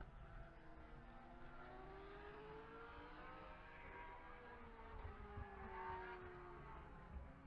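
Faint engine sound of a car, its pitch rising and then falling over several seconds.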